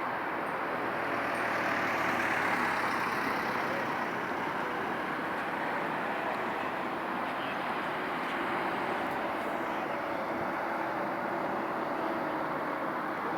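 Steady rush of motor vehicles and traffic, swelling slightly about two seconds in.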